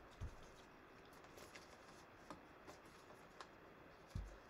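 Near silence, with faint handling of trading cards on a table: a soft thump about a quarter second in, another near the end, and a few light ticks in between.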